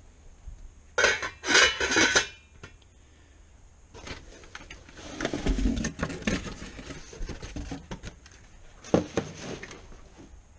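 Stainless-steel tri-ply pots and lids clanking and clinking as they are handled, with a burst of metal-on-metal clatter about a second in. This is followed by a longer stretch of knocking and rubbing handling noise, and a couple of sharp knocks near the end.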